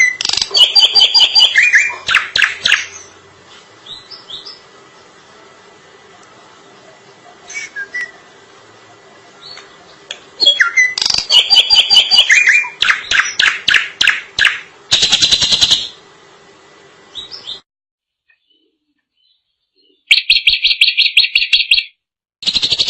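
Drongo singing in loud bursts of fast, repeated chattering notes, separated by pauses of several seconds. A faint steady hum lies under the first part.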